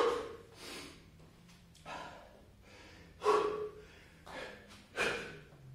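A man breathing hard, winded from a long run of burpees: a string of sharp, forceful exhales, the loudest at the very start and others every second or two.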